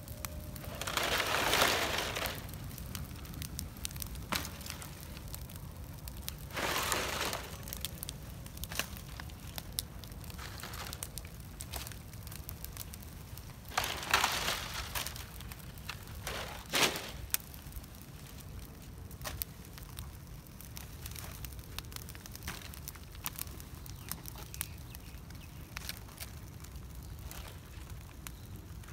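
Bonfire of dry palm fronds and branches crackling and popping, with four louder bouts of dry rustling and crunching as dry palm fronds are dragged and thrown onto the fire.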